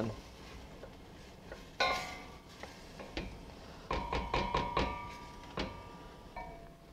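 Wooden spoon knocking against the side and rim of a stainless steel stockpot while stirring diced beef and onions, each knock making the pot ring briefly. One knock comes about two seconds in, then a cluster of knocks around four to five seconds in.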